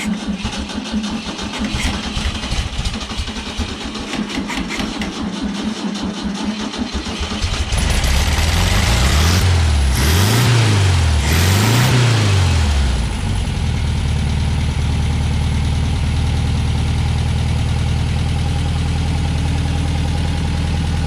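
A 1963 VW Beetle's air-cooled flat-four engine being started: it cranks with a fast pulsing for several seconds, catches about eight seconds in, is revved up and down twice, then settles into a steady idle.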